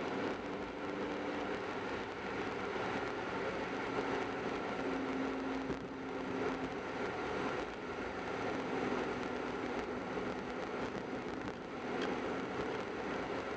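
Car driving along a road: steady tyre and road noise with a low engine hum that comes and goes.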